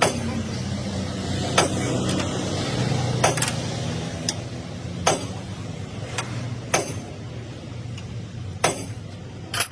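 Hammer striking metal, about nine sharp blows at irregular intervals, over a steady low engine hum.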